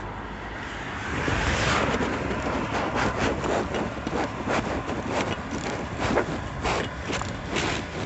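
A road vehicle passing with a swelling rush about two seconds in, followed by a series of irregular sharp knocks over steady traffic noise.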